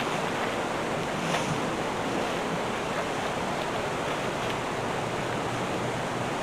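Steady rushing noise with no clear single source, and a faint click about a second in.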